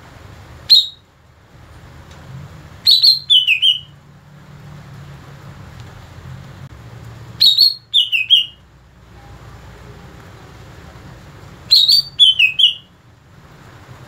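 Male greater green leafbird (cucak ijo) singing: a single short note about a second in, then three phrases of several quick whistled notes that step down in pitch, about every four to five seconds.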